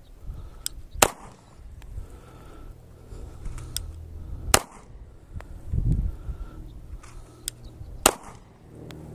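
Three pistol shots from a Glock-pattern P80 build, fired about three and a half seconds apart, with fainter sharp cracks between them. Low wind rumble runs throughout.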